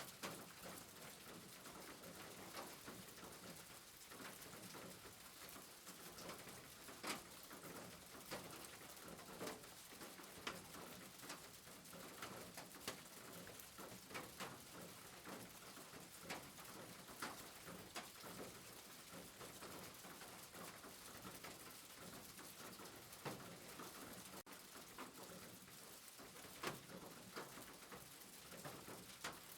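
Rain falling, a soft steady hiss with scattered sharper drops landing at irregular moments.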